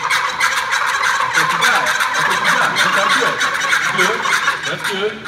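Several hand-held turkey calls shaken at once to imitate gobbling: a continuous, overlapping fast rattle of gobbles that drops off suddenly at the very end.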